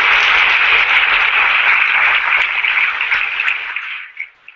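Audience applauding, then dying away near the end.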